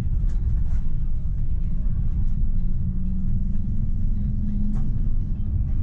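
Electric tram running along the track, heard from the driver's cab: a steady low rumble of wheels on rails with faint clicks. A low motor hum rises slightly in pitch and stops about five seconds in, just after a sharper click.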